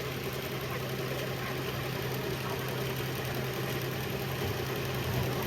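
Rice combine harvester's engine running steadily at a constant speed, with machinery noise over it.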